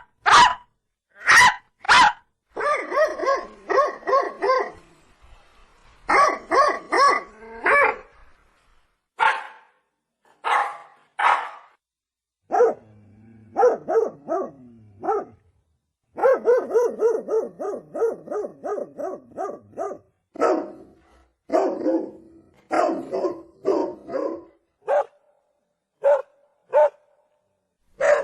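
Rajapalayam dog barking repeatedly in bouts. A few single loud barks come first, then quick runs of several short barks, with brief pauses between the runs.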